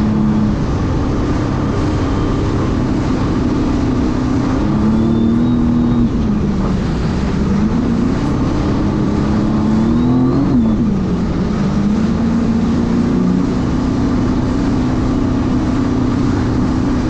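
Sea-Doo RXT-X 300 personal watercraft engine running under way over a wash of water and wind noise. The engine note dips about six seconds in, climbs again to about ten seconds, then drops sharply and holds steady.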